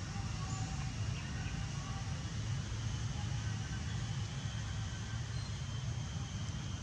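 Steady low rumble of distant road traffic, with a few faint short high tones over it.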